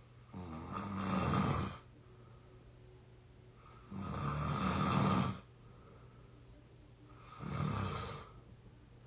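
A 22-year-old person snoring in deep sleep: three long snores, each about a second and a half, coming at an even pace roughly every three and a half seconds.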